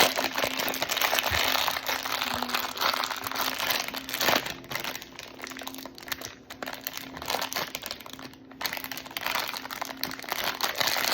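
Plastic toy packaging crinkling and rustling as it is handled and torn open by hand, in irregular bursts with a couple of short pauses.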